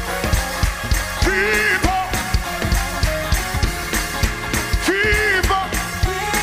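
Fast gospel praise-break music from a live band, driven by a steady, quick drum-kit beat, with two short wavering held notes over it.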